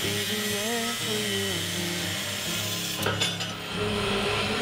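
Angle grinder grinding steel plate, a steady rasping run with a brief knock about three seconds in.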